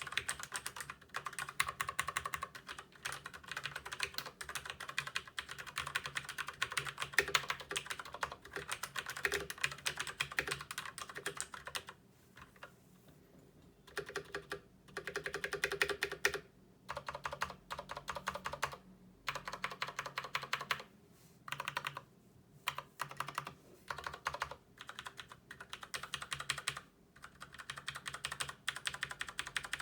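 Typing on a Filco Majestouch 2 mechanical keyboard with tactile Cherry MX Brown switches. The keys clatter in a fast, continuous run for about twelve seconds, then stop for about two seconds. After that they come in short bursts of keystrokes with brief pauses between them.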